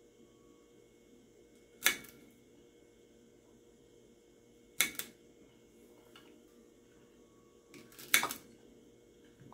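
Kitchen knife cutting the ends off okra pods and tapping the ceramic plate beneath: three sharp knocks about three seconds apart, the second and third doubled.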